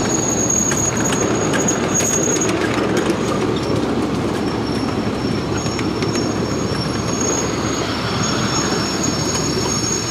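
Ride-on miniature railway cars rolling along the track: a steady rumble of small steel wheels on the rails, with a thin high-pitched wheel squeal that comes and goes and scattered clicks over the first few seconds.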